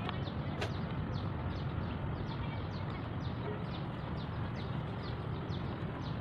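A bird calling over and over in short falling chirps, about three a second, over a steady low outdoor hum. A sharp click sounds once, about half a second in.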